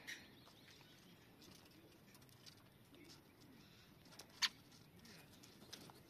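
Faint bird sounds from feeding birds: soft low calls and light pattering of pecking and scratching, with one short, sharp high chirp about four and a half seconds in.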